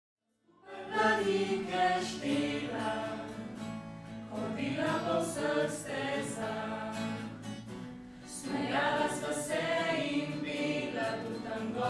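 Small mixed choir of young women and men singing, starting about half a second in.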